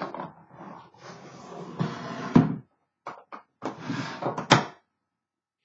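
Cloth-covered wooden typewriter case being handled: rubbing and scraping, with several sharp clicks of its latches, the loudest about two and a half and four and a half seconds in. The sound stops abruptly shortly before the end.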